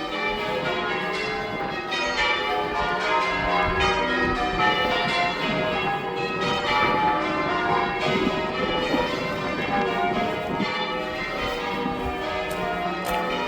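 Chichester Cathedral's bells being rung in changes: an unbroken run of overlapping strikes at different pitches.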